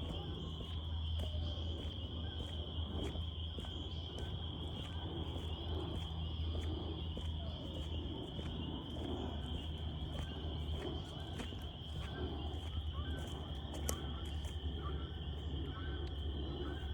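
A loud chorus of frogs at night: a steady high-pitched trill throughout, with shorter calls repeating over it, about one a second in the second half.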